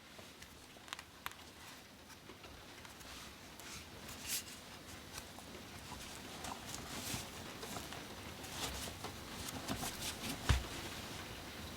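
Typing on a custom 60% mechanical keyboard with vintage Cherry MX Black switches and GMK keycaps: irregular keystroke clacks that start sparse and grow louder and more frequent. A deeper thump about ten and a half seconds in.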